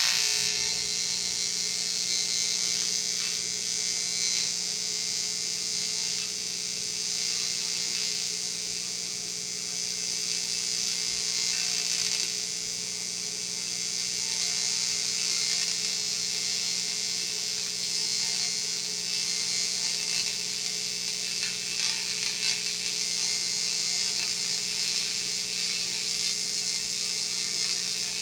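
TIG welding arc on an aluminum drive shaft: a steady buzzing hiss over a low electrical hum, which starts abruptly as the arc is struck.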